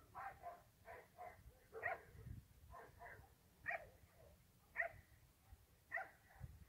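A dog barking repeatedly, faint short barks: a quick run of them in the first two seconds, then single barks about a second apart.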